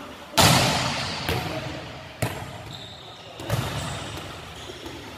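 Volleyballs being struck during a drill: sharp smacks of hand and forearms on the ball, four or so, the loudest about half a second in. Each hit rings on in the echoing sports hall.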